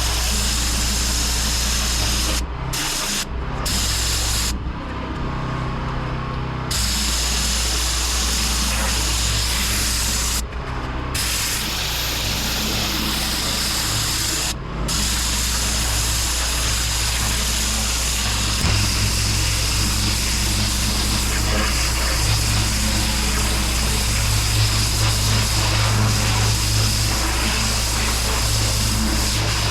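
Pressure washer running steadily, its water jet hissing against block paving. The spray cuts out briefly several times in the first half.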